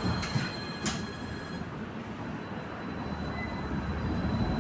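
Tram running, heard from inside the car: a steady low rumble with a thin high whine that stops about a second and a half in. Two sharp clicks come in the first second, and the rumble grows louder near the end.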